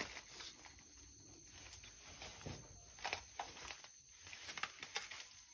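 Faint footsteps and rustling among leaves, with a scattered handful of light clicks.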